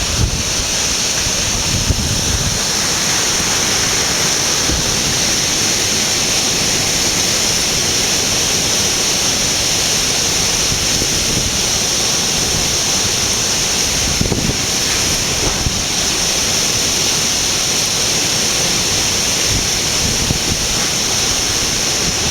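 Heavy rain pouring down in a strong wind, a steady rushing hiss, with gusts buffeting the microphone in low rumbles.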